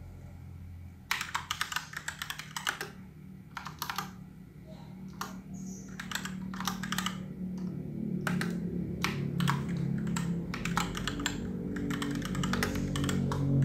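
Typing on a computer keyboard: quick runs of key clicks, a few strokes at a time at first and denser through the second half. A low drone grows louder under the typing in the second half.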